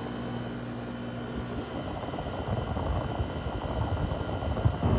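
Haier 5,200 BTU window air conditioner running: a steady low hum, then an uneven, gusty low rumble of moving air that builds in the second half.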